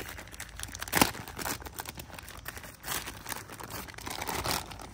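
Thin clear plastic packaging bag crinkling and rustling as it is pulled open and off a toy truck, with a sharp crackle about a second in.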